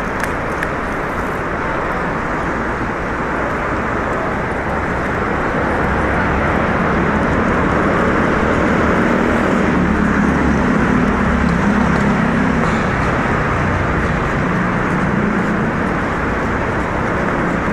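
Street traffic noise: a steady rush of passing cars, with a vehicle's engine rumble growing louder in the middle and fading again near the end.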